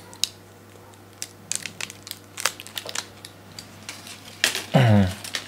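Dry, stiff animal sinews being handled and set down: irregular crinkly rustling and crackling clicks. Near the end comes a short falling grunt, as someone bends down.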